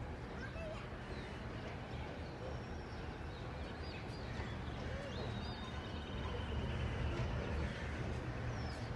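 Diesel-electric locomotive (GEU class) running at low speed as it draws slowly toward the platform: a steady low rumble that grows a little louder in the later seconds. Birds chirp over it.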